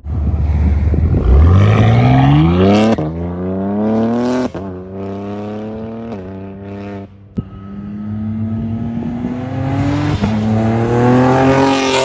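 BMW G82 M4's twin-turbo straight-six through a Fi Exhaust valved catback with catless downpipes, pulling away hard: the exhaust note climbs steeply, drops at a quick upshift about three seconds in, climbs again and shifts again a second and a half later. After a short break about seven seconds in, the car is heard coming on at speed, rising in pitch and getting louder toward the end.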